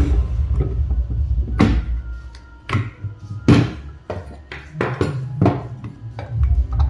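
Background music: a sparse passage of single drum hits with short ringing tones, between fuller, busier stretches of the track that has tabla-like percussion.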